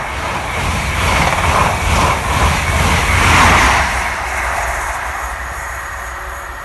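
East Midlands Trains High Speed Train (InterCity 125) passing close at speed: a continuous rush of wheels on rail and wind, swelling to its loudest as the rear Class 43 power car goes by about three seconds in, then fading as the train recedes.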